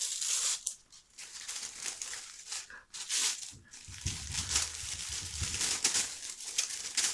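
Gift wrapping crinkling and tearing in irregular bursts as a small wrapped package is opened by hand, with some duller handling noise midway.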